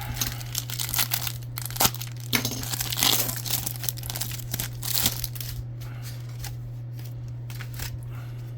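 A trading-card pack wrapper being crinkled and torn open, a run of sharp crackles and rips that thins out after about six seconds.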